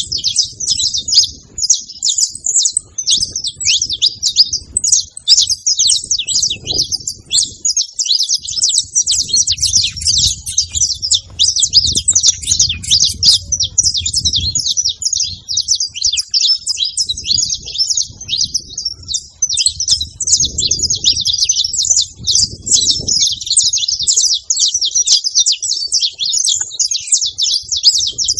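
Saffron finch chirping and singing in a fast, unbroken stream of high, rapid notes.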